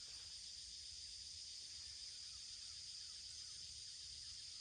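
Faint, steady high-pitched chorus of crickets, with a low rumble underneath.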